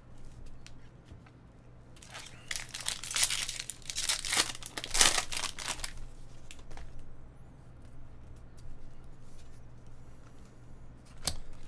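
A plastic trading-card pack wrapper being torn open and crinkled: a burst of tearing and crackling from about two to six seconds in, then lighter handling noise and a single sharp click near the end.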